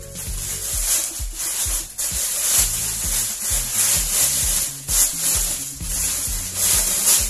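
Plastic wrapping crinkling and rustling in repeated bursts as an induction cooker is pulled out of its cardboard box, over background music with a steady bass beat.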